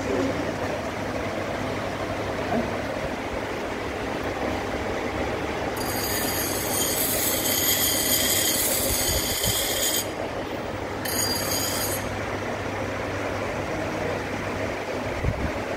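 Freeport surface grinder running with a steady motor hum. About six seconds in the grinding wheel meets the workpiece and gives a high screech for roughly four seconds. It stops, then comes back briefly about eleven seconds in, as the table carries the work past the wheel.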